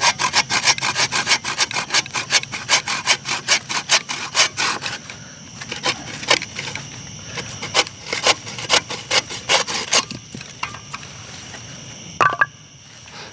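A blade working wood in quick, even strokes, about five a second, which thin out to a few scattered strokes about five seconds in.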